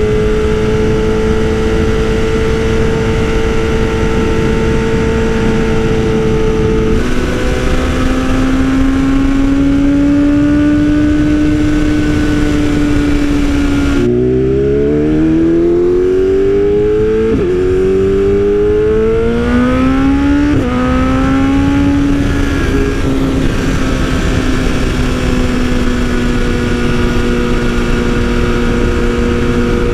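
2020 BMW S1000RR M Sport's inline-four engine through an Austin Racing exhaust, heard from on the bike while riding: cruising at a steady pitch, dropping to a lower steady pitch on an upshift about seven seconds in. About halfway through the revs dip and then climb in a hard pull, cut by two upshifts a few seconds apart, before it settles back to a steady cruise.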